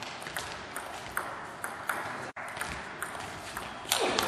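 Table tennis rally: the celluloid ball clicking sharply off the rackets and the table, about two hits a second.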